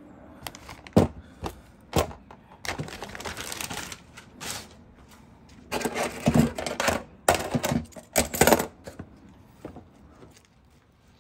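Hands handling intake parts: sharp clicks and clinks of stainless T-bolt hose clamps and knocks of silicone couplers on a ribbed aluminum board, with packaging crinkling in between.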